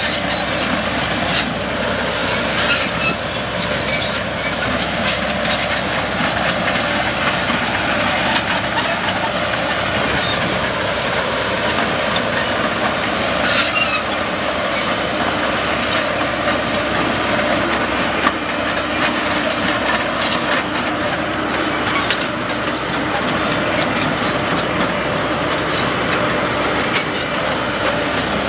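Caterpillar 312 tracked excavator travelling, its diesel engine running steadily under the clatter of its steel tracks, with many small clanks throughout.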